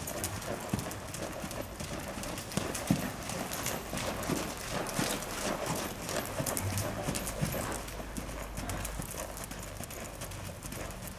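Hoofbeats of an American Quarter Horse gelding moving under saddle over sand arena footing: repeated dull hoof strikes in a running rhythm.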